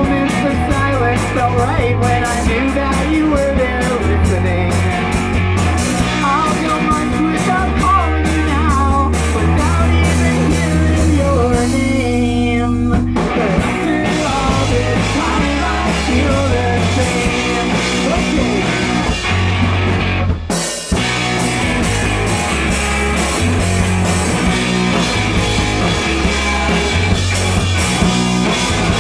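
Live rock band playing an instrumental passage of a song: electric guitar, bass and drum kit, with a short break in the playing about two-thirds of the way through.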